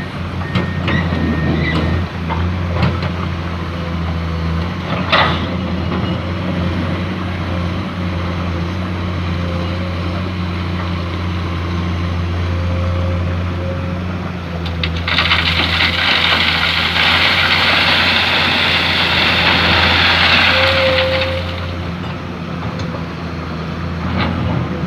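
Excavator's diesel engine running steadily under load, with a knock about five seconds in and a loud hiss lasting about six seconds past the middle.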